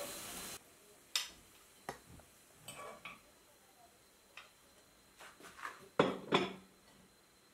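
A metal fork clinking and tapping against a nonstick appe pan and a plate as appe are lifted out and set down: a string of light, separate clinks, the loudest two about six seconds in.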